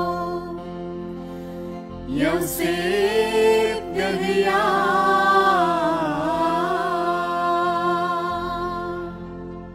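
Small mixed choir of men and women singing a slow, ornamented Syriac liturgical hymn from the Syro-Malabar office of the dead. The singing swells about two seconds in with gliding, held notes and fades near the end.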